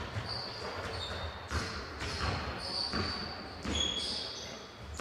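A ball bouncing on a wooden sports-hall floor, irregular echoing thuds about once a second, with short high squeaks between them.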